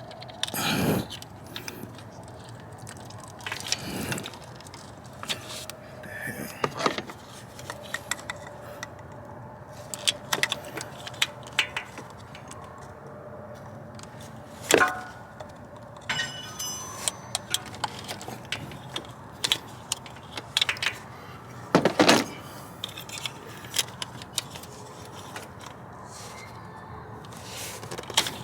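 Irregular clicks, knocks and clatter of hand tools and parts being worked in an engine bay, with a few sharper knocks among many light ticks, over a faint steady background hum.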